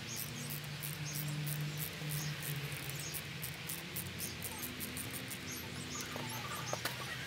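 Insects chirping in a rapid, very regular ticking rhythm over a low steady hum, with a few light clicks about six to seven seconds in.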